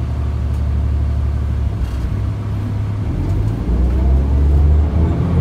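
A New Flyer D40LF transit bus's Cummins ISL diesel engine, heard from inside the cabin, idles with a steady low hum. About four seconds in it revs up, its pitch rising as the bus pulls away from a stop.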